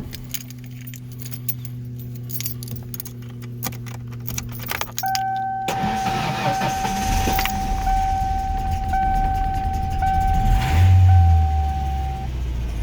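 A jump-start attempt on a 1994 Ford Ranger's 2.3 L four-cylinder: rapid clicking, then the engine cranking over with a warning chime beeping about once a second, and the engine rumbling as it catches near the end.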